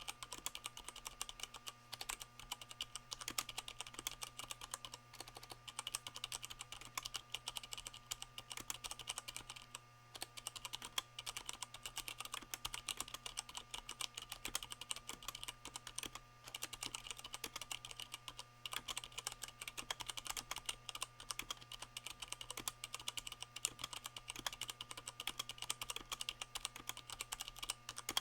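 Fast, continuous typing on a Leopold FC660M mechanical keyboard with Cherry MX Brown switches fitted with O-rings, the board resting on a microfiber towel: a rapid stream of muted keystroke clicks. There are short pauses about ten and sixteen seconds in.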